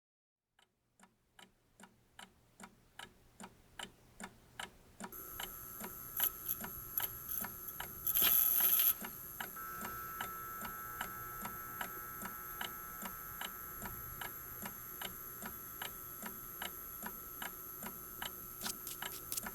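Regular ticking, about three ticks a second, fading in over the first few seconds. After about five seconds a steady high electronic hum joins it, and a loud burst of noise lasting about a second comes about eight seconds in.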